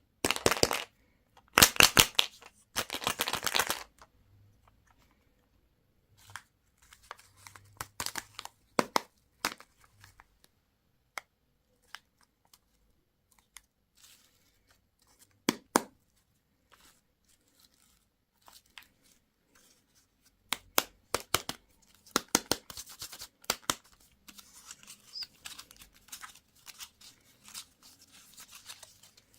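Candy packaging being torn open and crinkled by hand. There is a quick series of loud tearing rips in the first few seconds, then scattered crackles and clicks, and a longer stretch of crinkling near the end.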